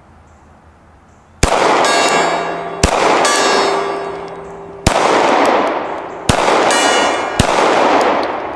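Five 9mm pistol shots from a Glock 19X, starting about one and a half seconds in and spaced one to two seconds apart, each followed by a large steel gong ringing out and fading.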